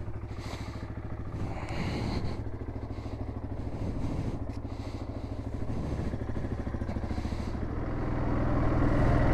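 Yamaha Grizzly 700 ATV's single-cylinder four-stroke engine running steadily, getting louder in the last second or so.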